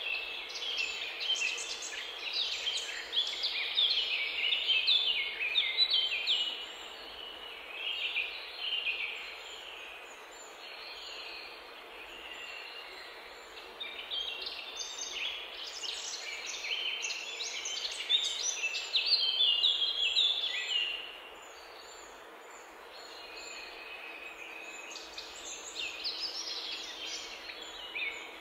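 Birds chirping: many quick, high calls overlapping in busy bursts, thinning out twice, about ten seconds in and again a little past twenty seconds.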